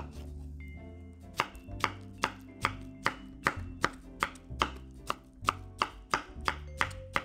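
Kitchen knife chopping strawberries on a wooden cutting board: a steady run of sharp knocks, about two and a half a second, starting about a second in, over light background music.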